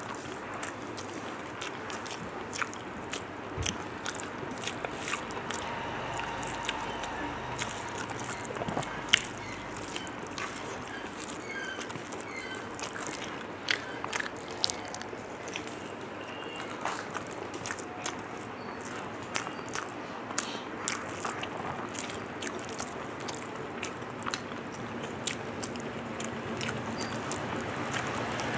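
A person chewing a mouthful of rice and curry, with many small wet mouth clicks and smacks at irregular intervals.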